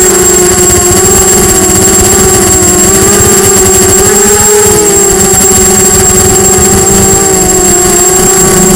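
Brushless motors and propellers of a Diatone Blade 250 quadcopter whining in flight, heard close from the camera on the craft, the pitch wavering up and down with throttle and dipping about halfway through. A thin, steady high tone runs above it.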